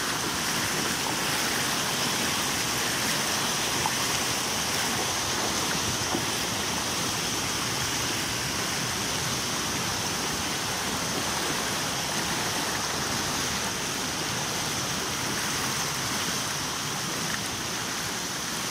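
Steady noise of shallow floodwater flowing across a road.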